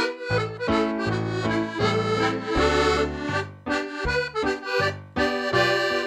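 Excelsior piano accordion playing a polka: a melody on the right-hand keyboard over a steady, regular left-hand bass-and-chord accompaniment.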